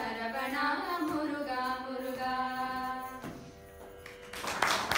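Two girls singing the closing phrase of a Carnatic devotional song (bhajan), ending on a long held note about three seconds in, over a steady drone that carries on after the voices stop. Applause starts near the end.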